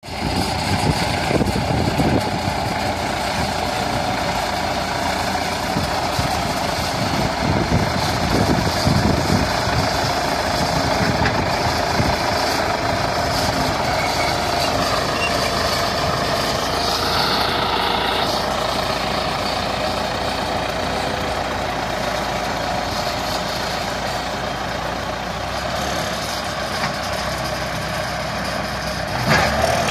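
DT-75 crawler tractor's diesel engine running steadily as it pushes a dozer blade through tall weeds and soil, with the engine note wavering briefly about halfway through.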